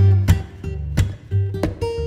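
Background music on acoustic guitar, with plucked notes sounding in a regular rhythm over a deep bass.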